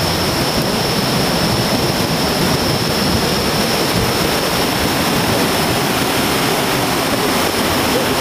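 Fast-flowing river and waterfall water rushing in a steady, unbroken roar.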